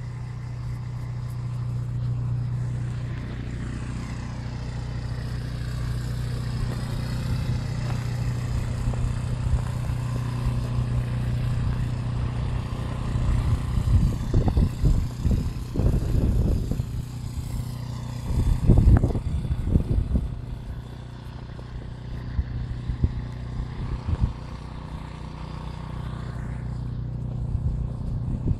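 A steady low engine hum, with a run of louder bumps about halfway through.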